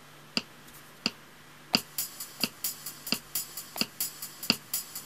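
Beatmaker 2 drum machine on an iPad running its record metronome, a steady click about every 0.7 s. About two seconds in, drum samples tapped in on the touchscreen pads join the clicks as a busier pattern of bright, cymbal-like hits.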